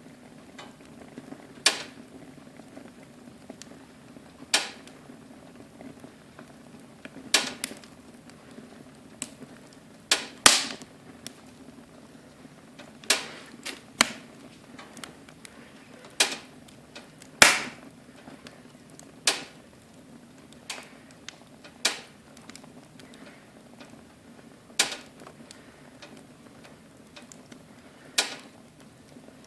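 Wood fire burning in a fireplace, crackling with sharp pops at irregular intervals, roughly one every one to three seconds.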